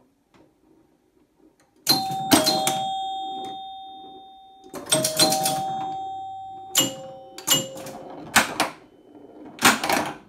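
Score chimes (bells) of a 1978 Gottlieb Sinbad electromechanical pinball machine ringing during play, together with its mechanical clacks. Starting about two seconds in, they are struck in quick pairs and clusters, several pitches, each ring fading over a second or more.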